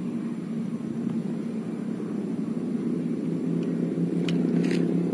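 A steady engine drone with a fixed pitch, slowly growing louder, with a few short sharp clicks about four seconds in.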